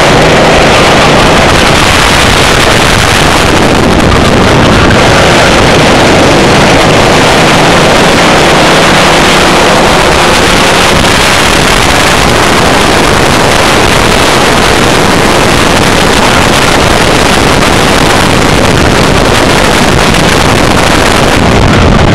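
Racing kart engine running at speed, heard from an onboard camera and buried in loud, steady wind buffeting on the microphone, so the whole sound is heavily distorted.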